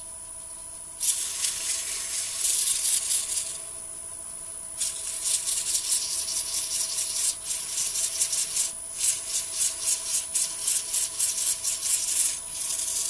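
Hand sanding of the wooden point of a spinning top: abrasive rubbing on wood in a few longer bursts, then quick back-and-forth strokes about three a second. A faint steady hum runs underneath.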